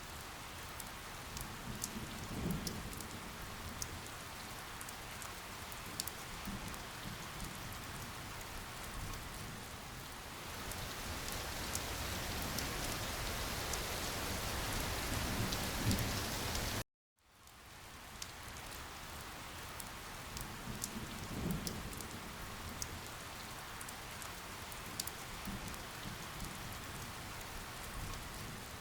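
Steady rain falling, with individual drops ticking sharply through it. It cuts out for a split second about 17 seconds in, then resumes.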